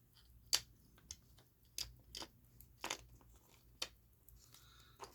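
A handful of light, irregular clicks and taps as small watch parts and tools are handled on a workbench while Loctite is applied to a crown.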